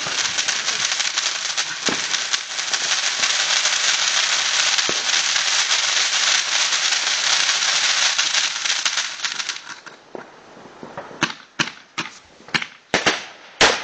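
Ground firework fountain spraying sparks with a dense, continuous crackle for about ten seconds. It then gives way to a run of separate sharp bangs, several a second, toward the end.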